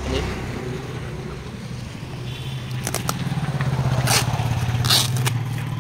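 A low, steady engine hum runs throughout. Over it, packing tape is picked and peeled off a cardboard parcel, giving three short scratchy rips about three, four and five seconds in.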